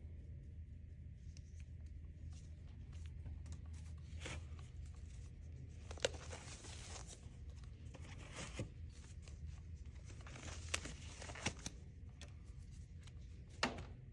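Faint rustling and crinkling of medical supply packaging and nitrile gloves being handled during blood-draw preparation, with a few sharp clicks and taps scattered through it over a low steady room hum.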